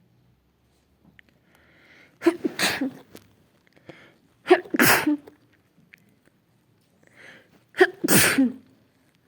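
A person's sneezing fit: three loud sneezes about two and a half seconds apart, each after a quick in-breath, from someone who is sick.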